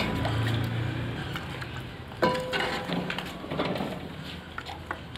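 Steel serving spoon clinking and scraping against a steel cooking pot while curry is ladled into a bowl, with one sharper ringing clink about two seconds in.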